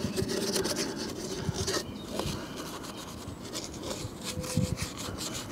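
Small bristle detail brush scrubbing the plastic water-inlet surround and wall panel of a caravan, a quick run of short scratchy strokes, lifting off dirt.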